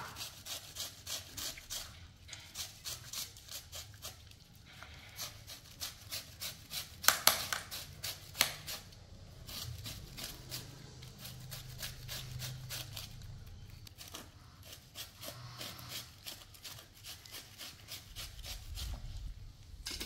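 A julienne peeler scraping strands off a firm vegetable in quick repeated strokes, about two to three a second, with a few sharper, louder clicks about seven to eight seconds in.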